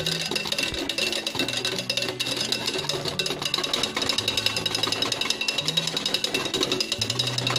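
Wire balloon whisk rattling rapidly against the sides of a steel saucepan, beating hot milk and coffee, over background music with a steady bass line.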